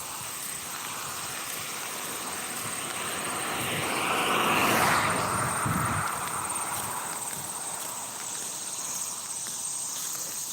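A passing vehicle: its noise swells, loudest about halfway through, then fades away.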